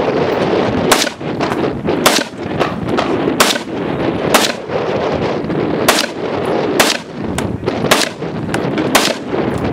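Semi-automatic AR-style rifle fired in a steady string: about eight loud sharp shots roughly a second apart, with fainter cracks between them, over a steady background rush.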